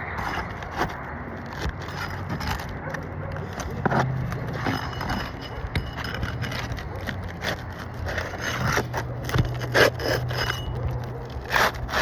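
Metal roofing tool scraping and prying under asphalt shingles, with irregular scrapes and clicks as roofing nails are worked loose.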